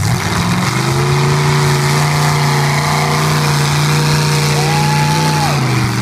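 Lifted pickup truck's engine revved hard, climbing in the first second and then held at high revs while it ploughs through deep mud, easing off just before the end. A brief high-pitched tone sounds for about a second shortly before the revs drop.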